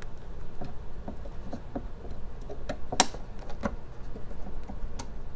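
Light metallic clicks and taps of a steel revolver side plate being worked back and forth onto a Rock Island M206 frame to seat it, with the sharpest click about three seconds in.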